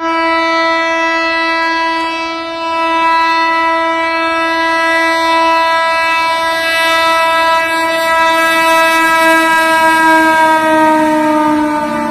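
Indian Railways electric locomotive's horn sounding one long, unbroken blast as it approaches. The horn's pitch slides down near the end as the locomotive passes.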